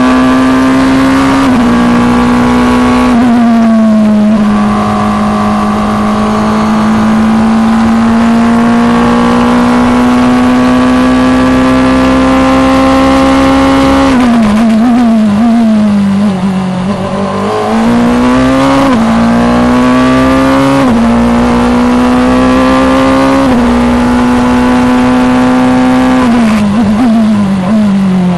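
Onboard engine sound of an FIA Formula Two single-seater's turbocharged four-cylinder at racing speed. It holds a steady high pitch for about ten seconds, then drops with wavering throttle blips on downshifts about 14 seconds in. It climbs again through several quick upshifts and falls into downshifts again near the end.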